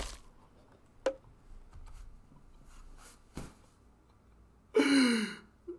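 Mostly quiet, with two faint clicks, then about five seconds in a short drawn-out voice sound that falls in pitch.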